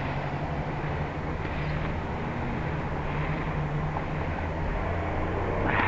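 Street traffic at an intersection: vehicle engines running with a steady low hum under general road noise, growing a little louder near the end.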